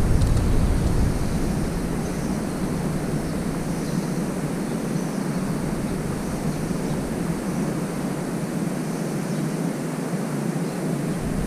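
Steady outdoor rushing noise with no distinct events, with a deep rumble during the first second that then eases off.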